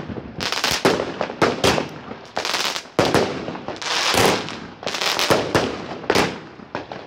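Firework cake (repeater battery) going off: an uneven run of sharp bangs, several a second, its shots bursting in crackling stars overhead.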